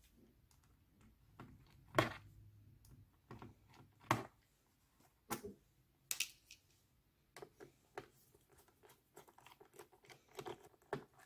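Irregular clicks, ticks and short scrapes of hand tools working on a laptop's plastic back cover to remove it. The sharpest click comes about two seconds in, followed by a quicker run of small ticks near the end.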